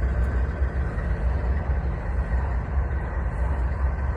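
CSX diesel locomotive engines running with a steady low rumble.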